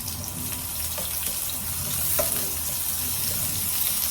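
Onion and chopped garlic sautéing in hot cooking oil in a pan: a steady sizzling hiss with scattered small crackles.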